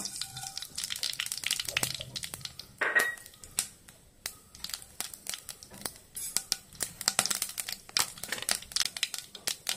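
Mustard seeds spluttering in hot coconut oil in a pan: many sharp, irregular pops that come thicker toward the end, with one brief louder burst about three seconds in. The popping is the sign that the seeds are done and the tempering is ready for the dals.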